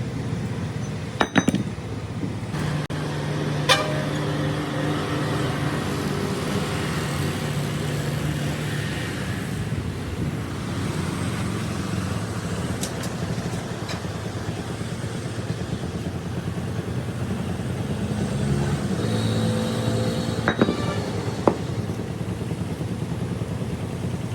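A steady mechanical hum of machinery running, with a few sharp metal clinks: one about a second in, another a few seconds later, and two close together near the end.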